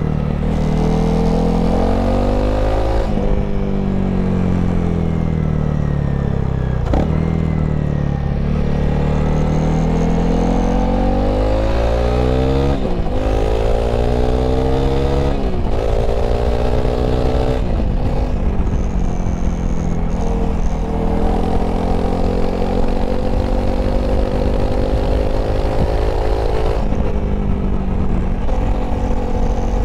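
Honda CRF300L's single-cylinder engine under way. The revs fall as it slows, then climb as it accelerates through the gears; each upshift is a sudden drop in pitch, a few seconds apart. It then holds a nearly steady, slowly rising note at speed.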